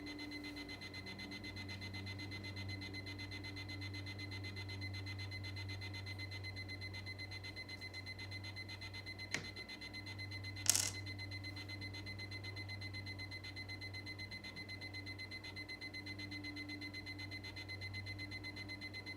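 LEGO Star Wars stormtrooper alarm clock sounding its alarm: a steady, rapidly pulsing high electronic beep, two short clicks in the middle, the second louder. The alarm is fairly quiet, which the owner thinks may mean its speaker is broken or blown.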